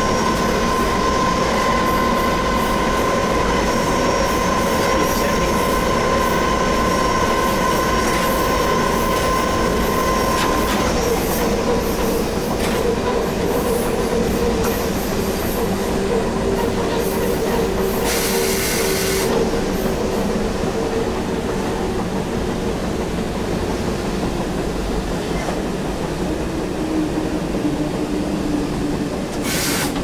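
Locomotive running along the track, heard from inside the cab: a steady rumble of wheels on rail under a whining tone that drops in pitch in steps after about ten seconds. There is a short burst of hiss past the middle and another near the end.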